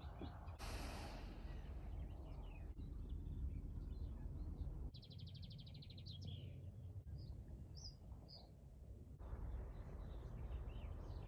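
Outdoor ambience with small birds calling: a rapid high trill about five seconds in, then a few short high chirps, over a steady low background rumble.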